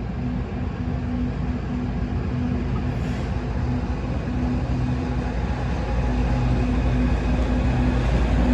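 Diesel locomotive engine running with a steady throbbing hum, growing louder as the train approaches, with a heavier low rumble building over the last few seconds.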